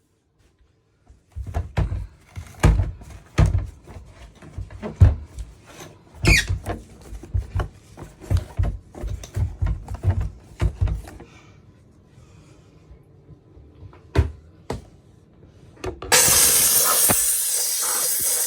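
Irregular knocks and clatters of hard parts being handled, with one brief squeak about six seconds in. About sixteen seconds in, a Dupray steam cleaner's jet starts with a loud, steady hiss.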